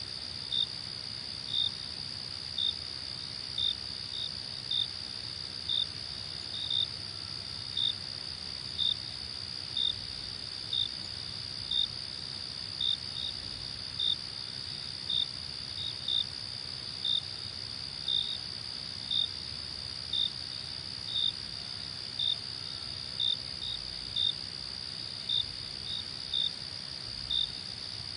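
Crickets: a steady high trill with short chirps repeating about once a second.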